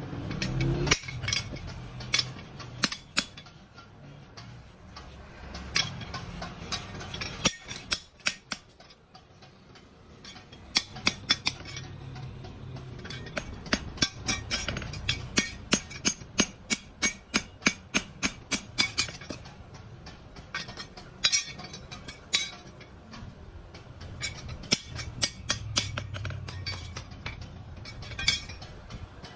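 Hammer blows on steel, ringing, coming in runs of quick strikes with short pauses between, over a low hum.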